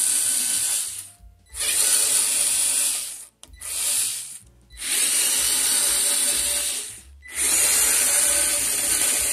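WORX cordless electric screwdriver running in five short bursts with brief pauses between, backing out the screws that hold a PC power supply to the steel case's rear panel.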